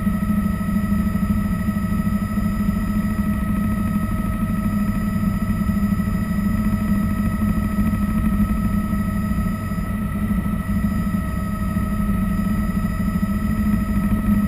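Bell 206 JetRanger helicopter heard from inside the cockpit: its Allison 250 turboshaft engine and rotor running steadily, a constant whine over a deep drone. The sound dips slightly about ten seconds in, then comes back.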